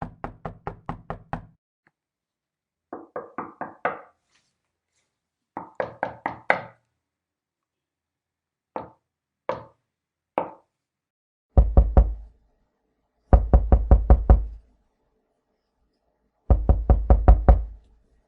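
Knocking on a door: quick bursts of rapid raps, then three slow single knocks, then heavy pounding on the door in three loud bursts with deep thuds.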